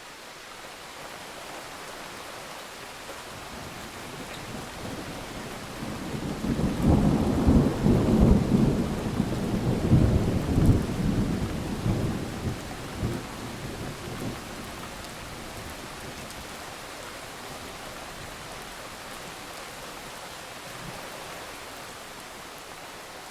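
Steady rain with a long roll of thunder. The thunder builds about six seconds in, rumbles loudest for several seconds, and dies away a little before halfway through, leaving the rain.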